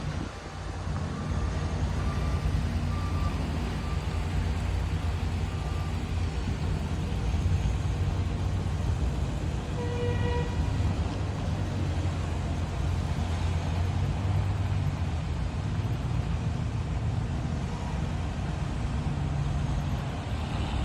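Motor vehicle running with a steady low engine and road rumble. About halfway through comes a short pitched tone like a horn toot.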